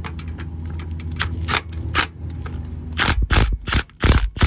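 Hand ratchet wrench backing out a 13 mm starter mounting bolt: a few scattered clicks, then from about three seconds in a quick run of short ratchet strokes, about three a second. A steady low hum runs underneath.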